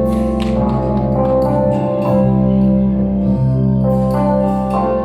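A live band playing the instrumental opening of a folk-rock song: sustained chords over a steady bass, with fresh notes struck in every second or so.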